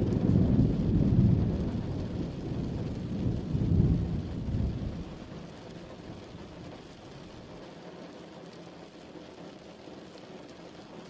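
Steady rain with a deep roll of thunder over the first few seconds. The thunder swells twice and dies away, leaving the rain alone.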